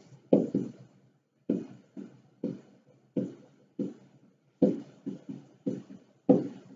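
Pen strokes on a classroom whiteboard as a phrase is handwritten: a string of short, irregular knocks and scrapes, roughly one every half second.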